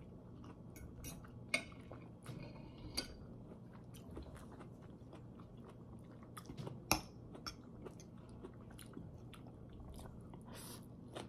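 Close-miked chewing of pad thai noodles: soft wet mouth sounds and lip smacks, broken by scattered short clicks. The sharpest click comes about seven seconds in.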